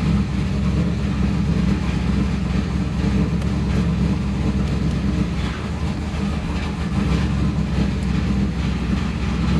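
Camaro engine running steadily, a low even rumble with vehicle noise, as the car is tested after the turn signal return spring repair.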